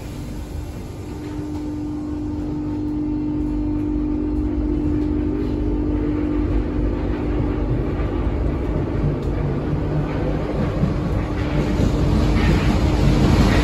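MF77 metro train pulling away from a station and gathering speed, heard from inside the passenger car. A steady hum runs through it, and the rumble of the running train builds up, loudest near the end as the train enters the tunnel.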